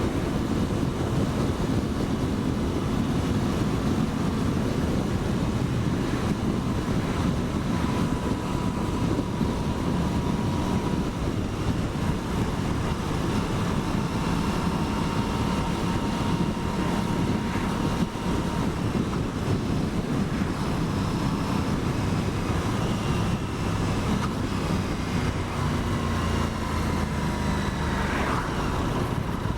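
Aprilia Tuono 660's parallel-twin engine running under way, its pitch shifting as the bike rides, mixed with steady wind rush on the helmet microphone.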